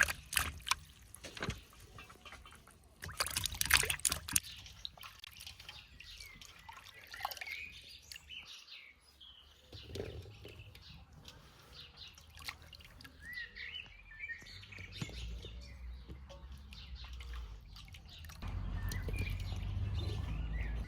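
Small birds chirping on and off. Two loud bouts of splashing come near the start and at about three to four seconds in, and a low steady rumble sets in near the end.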